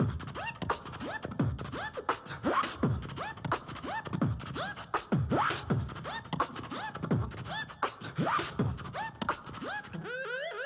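Vocal beatbox backing track: a steady beat of deep, falling kick-drum sounds with sharp clicks between them, all made with the mouth.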